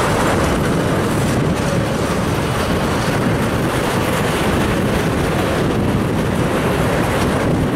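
Empty railroad tank cars rolling past, with the steady rumble and rush of steel wheels on the rails.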